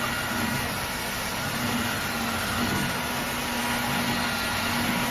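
Dreame H12 Dual cordless wet-dry vacuum mop running steadily with a constant hum, its suction motor drawing up water left on the hard floor.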